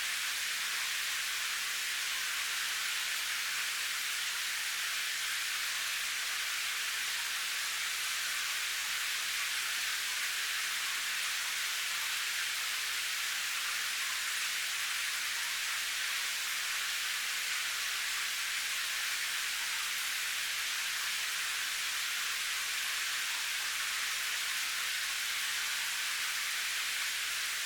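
Steady, even rainfall: a constant high hiss with no single drops standing out and no change in strength.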